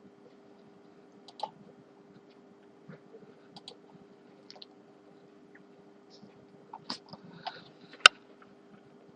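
Scattered light clicks and taps of small hard objects on a work surface, a handful spread out with a quick cluster near the end and one sharp, louder click just after it, over a faint steady hum.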